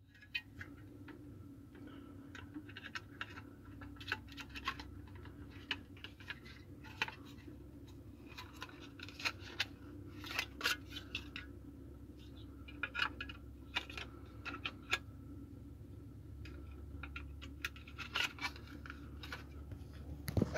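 Scattered small plastic clicks and taps as the circuit board and casing of a Siemens Landis termination module are handled and the board is pushed back into the casing, over a faint steady hum.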